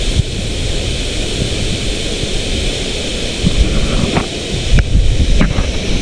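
Steady rushing hiss of a tall waterfall plunging into its pool, mixed with wind buffeting the microphone. A few short knocks come in the second half.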